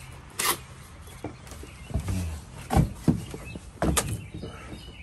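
Cardboard and plastic packaging being handled: rustling with several short knocks and scrapes while a small boxed battery is dug out of a shipping carton.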